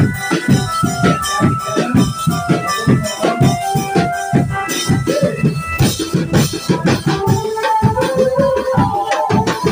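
Drum band music: fast, dense drumming with a melody of held notes played over it.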